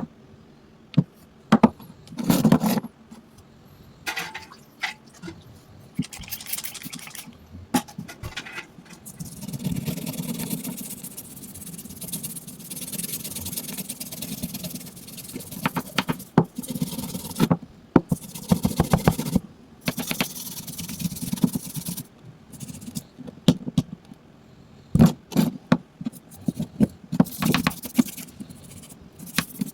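Irregular scraping and rubbing on a hard object, broken by many sharp clicks and knocks; the scraping comes in stretches of a few seconds with brief pauses between them.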